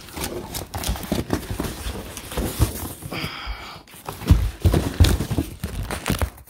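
Hands rummaging through a cardboard box of packed parts: cardboard and plastic wrapping rustling, with repeated knocks and bumps, and a brief squeak about three seconds in.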